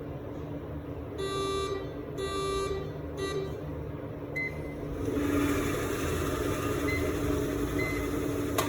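Salva convection oven's control-panel buzzer sounding two half-second buzzy beeps and then a short one, followed by a few short high key beeps as the program is stopped. From about halfway through, a steady hum with a hiss comes up underneath.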